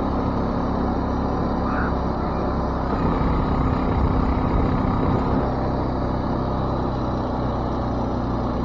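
ATV (four-wheeler) engine running at a steady speed while driving over snow, with a steady rushing noise; it gets a little louder about halfway through.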